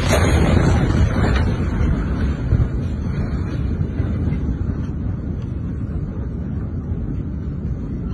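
Deep, loud rumble of a massive explosion's blast wave buffeting the phone's microphone, slowly dying away, with a couple of sharp knocks in the first few seconds.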